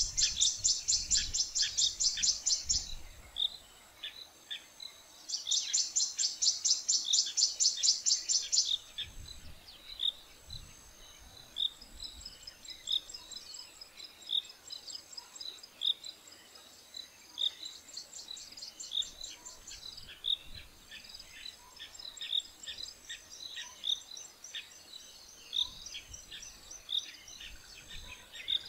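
Wild birds calling, with insects buzzing behind. Near the start come two loud runs of rapid, high trilling pulses. After that a short high note repeats about once a second over softer chirping.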